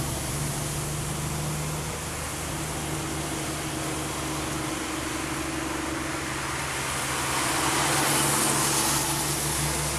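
Tractor-trailer diesel engine running with a steady low hum as the rig passes slowly, with tyres hissing on the wet road. The road noise grows louder near the end.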